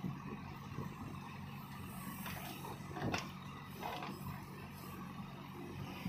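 Diesel engine of a JCB backhoe loader running steadily as it digs and swings its bucket, with a few faint knocks in the middle.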